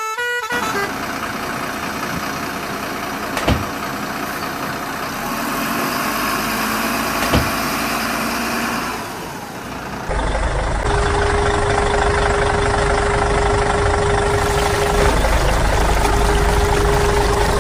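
A motor vehicle engine running steadily, with a sharp click about three and a half seconds in and another about seven seconds in. About ten seconds in, a louder, deeper engine sound with a steady hum takes over.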